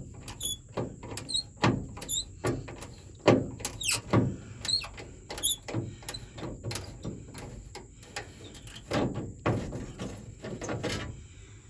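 Repeated metal clicks and knocks with short high squeaks: a 1967–72 Chevy C10 pickup's door handle and lock parts being worked by hand, dry enough to want oil.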